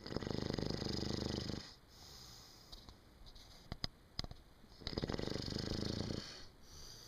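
A sleeper snoring loudly: two long snores, each lasting about a second and a half and about five seconds apart, with a few small clicks in the gap between them.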